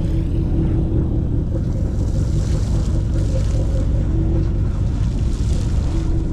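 Sportfishing boat's engine running with a steady low rumble and hum, over sea wash and wind on the microphone. A hiss of rushing water swells twice, about two and a half and five and a half seconds in.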